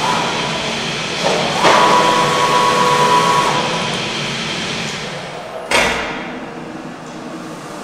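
Zünd digital flatbed cutter running: a steady machine hum, with a steady whine for about two seconds starting a second and a half in, and a single sharp clunk near the six-second mark.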